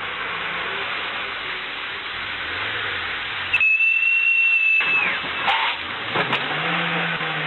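Steady hiss, broken about three and a half seconds in by a single high whistle-like tone held for about a second that slides down as it ends. A couple of short clicks follow.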